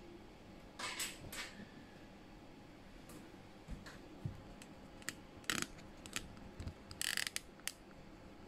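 Scattered light clicks and knocks from hands handling the camera and small hardware, with a quick run of sharp clicks about seven seconds in.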